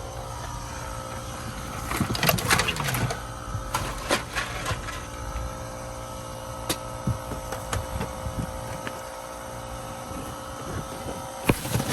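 A machine running steadily with a constant hum, with a burst of clattering knocks about two seconds in and scattered clicks after.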